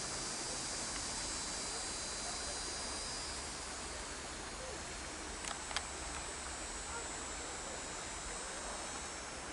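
Insects buzzing in a high, steady drone over a steady background hiss of outdoor ambience; the insect buzz fades out about three and a half seconds in. A couple of faint clicks come near the middle.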